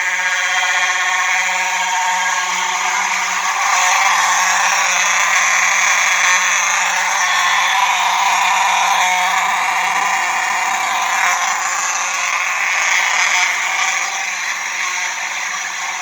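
Two Simplex electromechanical horn strobes sounding together at matching pitch: a continuous, steady, buzzing horn tone with no pauses.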